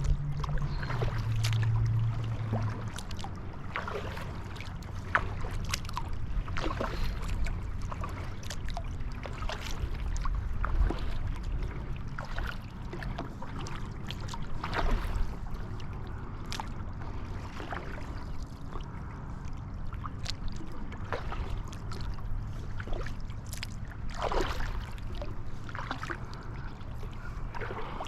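Kayak paddling: the paddle blades dip and splash, and water drips and trickles at an irregular pace, over a steady low rumble. A low hum stops about two and a half seconds in.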